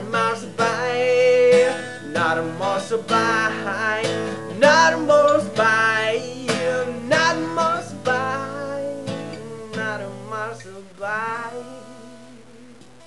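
Acoustic guitar strummed, with a man's voice singing wavering notes over it. Near the end the playing stops and the last chord rings out and fades.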